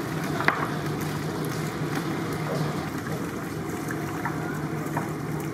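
A steady low mechanical hum, with faint wet squelches and clicks from hands kneading marinated chicken pieces in a large aluminium pot.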